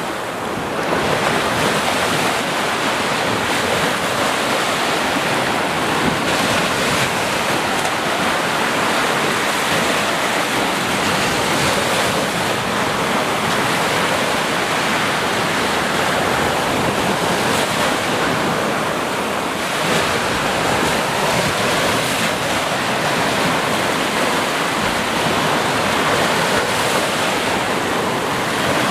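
Ocean surf: a continuous rush of waves breaking and washing, with only slight swells in loudness.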